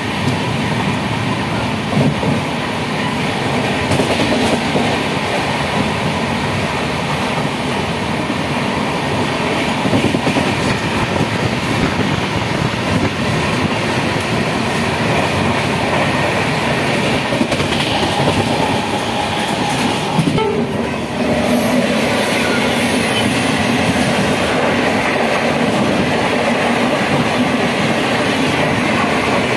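Steady running noise of a passenger train heard from inside a moving coach: rumble and rattle, with the wheels clicking over rail joints. The noise drops briefly about two-thirds of the way through, then returns.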